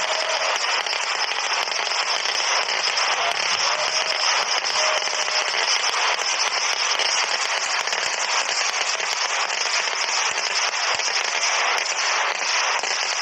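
Fireworks display firing a dense, unbroken barrage of firecrackers: many sharp bangs in quick succession merging into a steady crackle that keeps the same level throughout.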